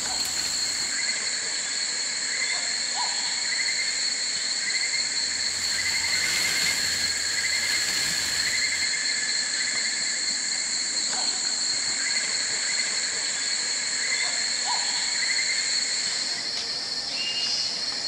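Tropical rainforest insect chorus: a steady high-pitched drone with a lower, rhythmically pulsing trill repeating throughout.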